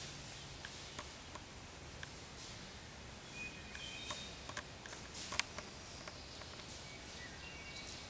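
Faint, scattered crackles and ticks of dry leaves as a downed turkey flaps and flops on the forest floor, with the sharpest tick about five seconds in. A few short, high bird chirps sound between about three and four and a half seconds in and again near the end.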